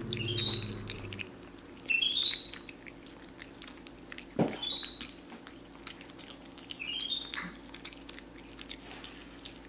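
Capuchin monkey chewing spaghetti and smacking its lips, with quick wet clicks and a few short high rising squeaks from its mouth.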